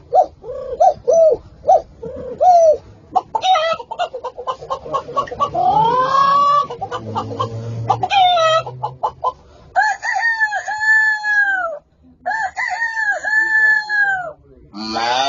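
A man imitating chickens with his voice: a run of short clucks, a burst of rapid clucking and a rising squawk, then two long rooster crows in the second half.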